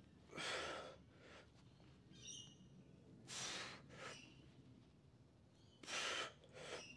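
A lifter's forceful breaths during heavy barbell bench press reps: three loud exhalations about two and a half seconds apart, one per press, and a shorter one right after the last. A bird chirps briefly in between.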